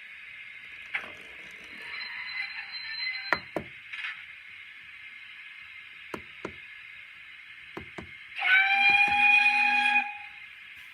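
OO gauge model locomotive running on the layout with a steady hum, its wheels giving pairs of clicks over the rail joints. About two-thirds of the way through, its sound unit gives one whistle of about a second and a half.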